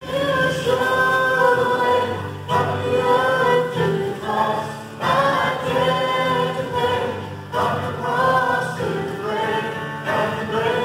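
A roomful of people singing a worship song together, in sung phrases of a couple of seconds with short breaks between them.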